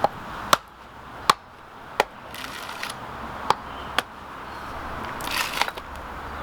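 A tool striking a wooden tree stump: six sharp hits at uneven intervals, some with a short ring, then a crunching scrape about five seconds in.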